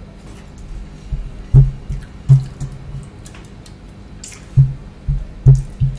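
Close-up wet mouth sounds of eating rice and curry by hand: chewing, then sucking and licking fingers, heard as a string of short low smacks with small clicks.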